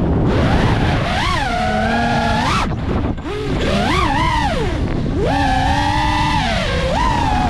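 FPV racing quadcopter's brushless motors whining, the pitch swooping up and down as the throttle is punched and cut, with a short drop-off just before the middle. Wind rushes over the microphone underneath.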